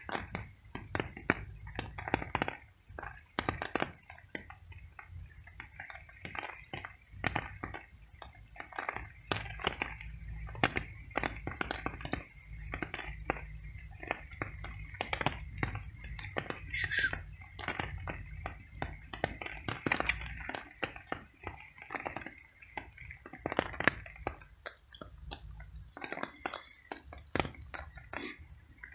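A stray cat chewing pieces of cooked veal: a quick, irregular run of wet clicks and smacks from its jaws, over a steady low rumble.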